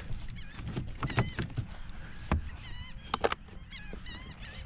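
Birds calling repeatedly in short, wavering calls. Over them come several sharp knocks and clatter as a speckled trout is handled in a landing net and laid on a plastic measuring board.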